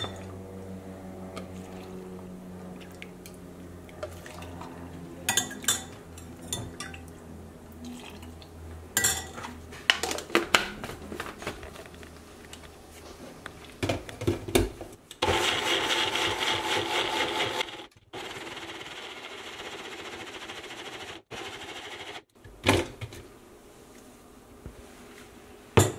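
Bullet-style personal blender grinding steeped hibiscus flowers with some of their liquid. It runs in pulses for about seven seconds, loudest for the first three, and stops short. Before it there are a few clinks of a metal ladle against the glass bowl and blender cup.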